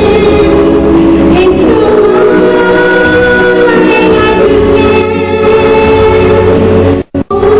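A solo singer performing a song into a microphone over musical accompaniment. The sound cuts out twice, briefly and sharply, near the end.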